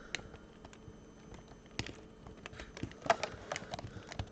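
Knife cutting and prying at the plastic packaging of a Hot Wheels premium car: scattered small clicks and crackles, growing busier about three seconds in.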